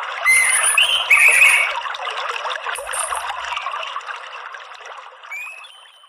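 Steady trickling stream water with a few short bird chirps and whistles over it, fading out near the end.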